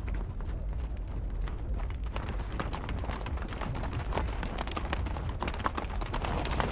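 Hoofbeats of a group of horses galloping and milling about on dry, stony ground, growing denser after about two seconds, over a steady low rumble.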